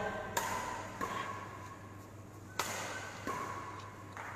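Badminton racket strings hitting a shuttlecock during a rally: about three sharp hits, two of them close together near the end, over a low hum in a large hall.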